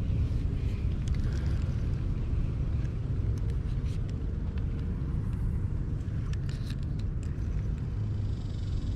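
Wind buffeting the microphone: a steady low rumble, with a few light clicks in the middle.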